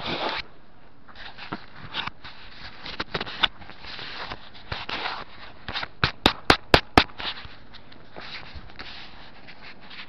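Handling noise from a hand-held camera being carried and fumbled: rustling and scraping with scattered knocks, and a quick run of four sharp clicks, about four a second, a little past six seconds in.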